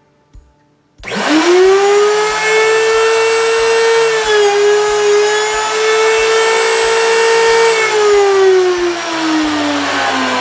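Router table motor switching on about a second in and whining quickly up to full speed. It runs steadily while a small wooden leg held in a fixture is pushed past the bit, with a brief dip in pitch about four seconds in. It is switched off about eight seconds in and winds down with a steadily falling whine.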